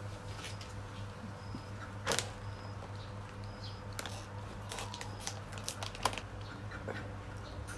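Plastic snack packet crinkling in a person's hands and being cut open with scissors: scattered sharp clicks and crackles, the loudest about two seconds in and again about six seconds in, over a faint steady low hum.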